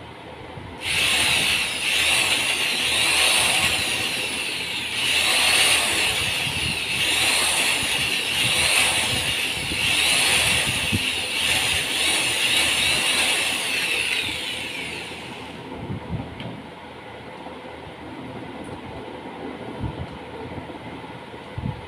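Handheld electric drill running, its pitch swelling and sagging over and over, starting about a second in and stopping sharply after about fifteen seconds. Underneath, the belt-driven hub-motor generator rig runs steadily throughout.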